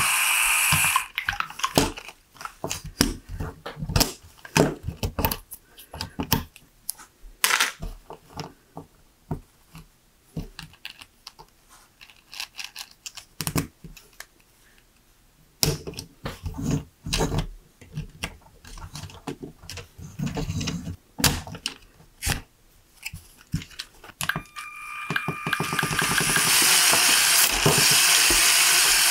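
LEGO Technic beams, pins and gears clicking and rattling as they are snapped together by hand, in scattered clicks with a quieter spell in the middle. A LEGO Mindstorms motor spinning the launcher's pair of tyred wheels whirs at the start and stops about a second in, then spins up again near the end into a steady whir.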